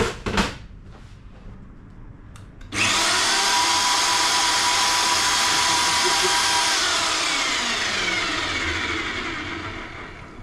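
A small electric wire-rope hoist's motor starts suddenly about three seconds in and runs with a steady whine as it pays out its cable, then winds down with a falling pitch and fades. Two sharp knocks come just before, at the very start.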